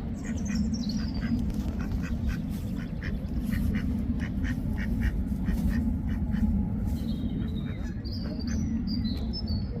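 Mallard ducks quacking in a quick, steady run of short calls, about three a second, over a constant low rumble. Small birds chirp high above them near the start and again near the end.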